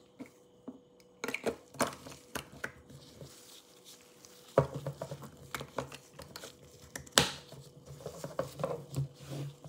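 Gloved hands handling a small plastic spray bottle and a glass beaker on a tabletop: scattered clicks, taps and rustles, with sharper knocks about four and a half and seven seconds in.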